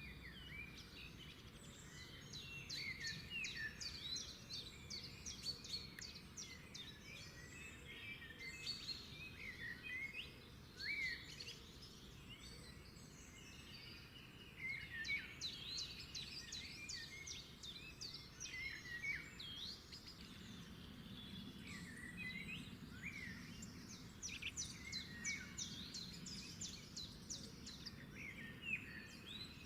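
Several birds chirping and trilling, with many short calls overlapping throughout, over a faint low hum.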